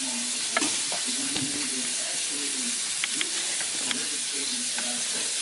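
Steady hiss of a pot boiling on the stove, with a few light knife clicks on a plastic cutting board as raw chicken thighs are cut, twice close together about three seconds in.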